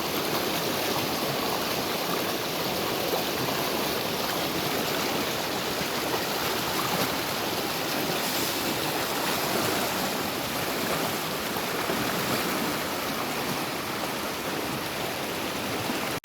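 Small river running over stones, a steady rushing and splashing of water.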